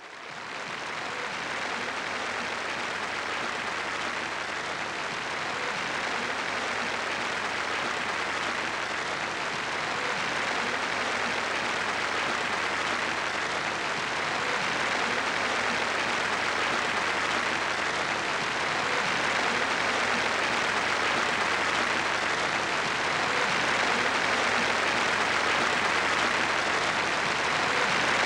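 Theatre audience applauding steadily, growing gradually louder.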